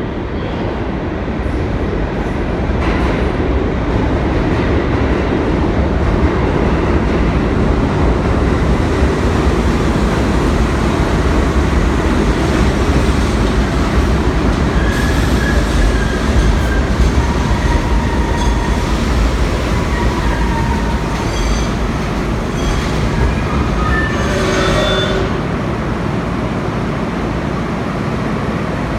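R32 subway train pulling into the station on the express track: a loud, heavy rumble of wheels on rail. Its brakes squeal in several high tones during the second half, and the rumble eases as the train comes to a stop about 25 seconds in.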